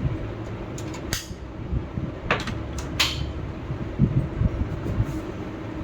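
Handling noises from a PC cabinet as its glass side panel is fitted: a few short scrapes and light knocks over a steady low hum.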